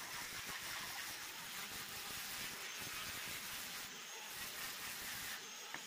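Sandpaper rubbing over the wooden body of a homemade hand plane, a steady scratchy hiss as the corners and faces are smoothed for finishing.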